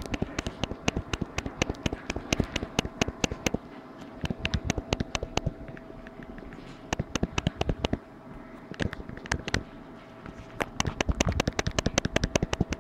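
Rapid, irregular clicking in bursts from a Nokia Lumia 920 being shaken: its stabilised camera module, mounted on hinges, knocks inside the phone with a ticking 'tsok-tsok', mixed with the noise of the phone moving in the hand.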